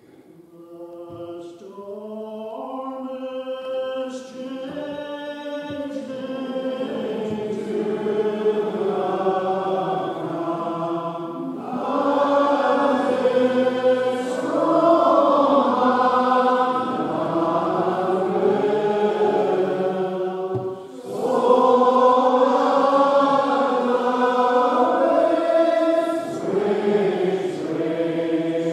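Congregation singing a Scottish metrical psalm unaccompanied, in slow drawn-out notes. A single voice starts the tune and the other voices join within about two seconds, with a brief break for breath about twenty seconds in.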